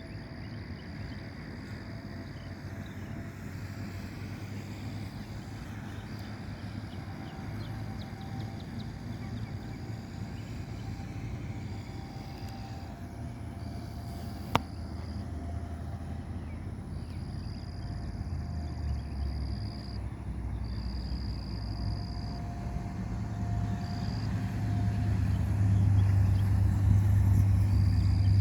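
Outdoor ambience with no siren sounding plainly: insects trilling in long pulses with short gaps, and a faint tone that comes and goes. A low vehicle rumble grows louder over the last ten seconds. A single sharp click comes about halfway.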